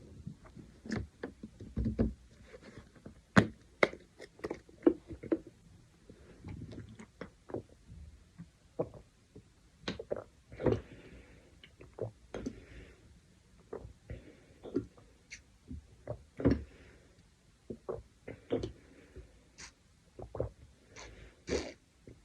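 A person gulping down water: a long run of short, irregular swallowing clicks and gulps, about one or two a second.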